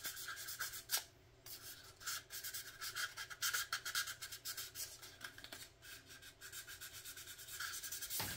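Fine 1000-grit sandpaper rubbed back and forth in quick, soft scratchy strokes over a plastic model car body half, smoothing it for primer. There is a brief pause about a second in.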